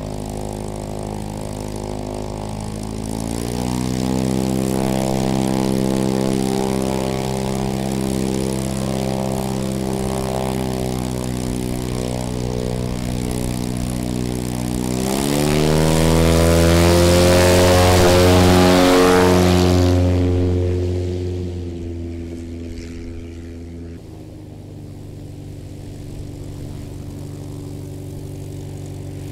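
Light bush plane's piston engine and propeller at the start line: the engine is throttled up about 3 seconds in, then opened to full power about 15 seconds in for a short takeoff, loudest for a few seconds before fading quickly as the plane departs. Near the end another light plane's engine idles as it taxis up.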